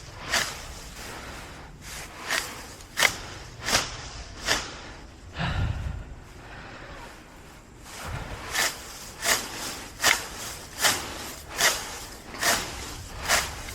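Grass being pulled up out of a lawn by hand, a short tearing rip roughly every 0.8 seconds. There is a pause of a few seconds in the middle with one low thud.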